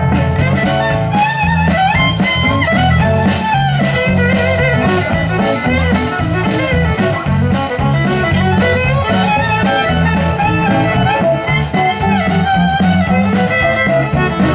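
Live band playing, a fiddle leading over strummed acoustic guitars with a steady drum beat about twice a second.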